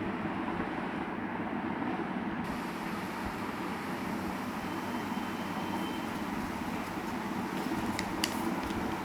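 Steady low rumbling background noise, with a few sharp clicks near the end.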